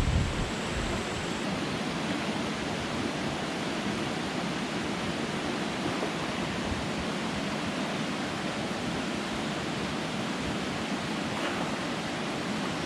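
Steady, even rush of water from a waterfall or cascade pouring into a rock pool, stopping abruptly at the very end.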